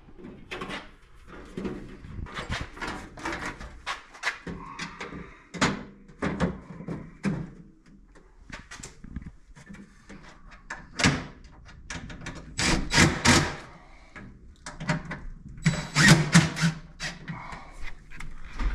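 Sheet-metal breaker panel cover being handled and fitted back onto the breaker box: a string of clanks, knocks and scrapes, with louder clusters near the middle and toward the end.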